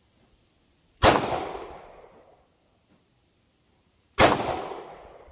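Two 9mm pistol shots from a CZ P-10 C, about three seconds apart, each followed by a fading echo lasting about a second.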